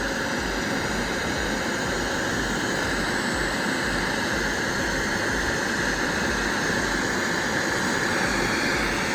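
CNC router spindle running steadily with a 45° V-bit at about 14,200 RPM, carving into plywood.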